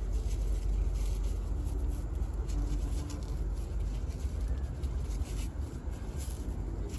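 Plastic fruit-bagging sleeve and foam net rustling and crinkling as they are pulled off a star apple on the tree, in light scratchy crackles here and there over a steady low rumble.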